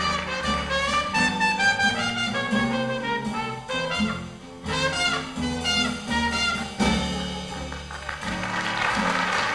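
Traditional jazz band playing: a muted trumpet leads with a line of short notes over a walking string bass and rhythm section, dropping out briefly about four seconds in.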